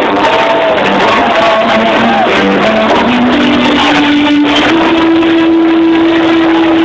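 Live rock band playing loudly: electric guitars and bass, with a line of notes stepping up in pitch and then one long note held from a little past the middle.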